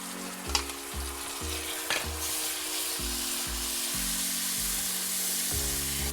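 Spiced masala of ginger-garlic paste and ground spices sizzling in oil in a pan as it is stirred, with a few knocks of the spoon against the pan early on; the sizzle grows louder about two seconds in. Soft background music plays underneath.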